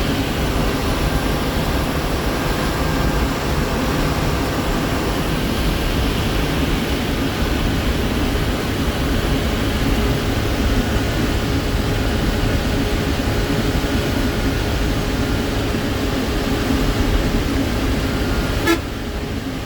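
Ashok Leyland 1616 Super truck's turbo diesel engine running steadily under load in top gear, with a faint turbocharger whistle over the engine noise. A sharp click near the end, after which the sound drops in level.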